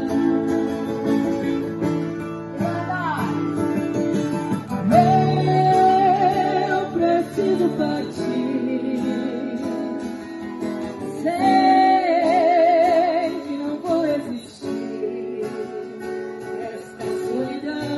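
Live acoustic band music: strummed acoustic guitar with women's voices singing long held notes with vibrato.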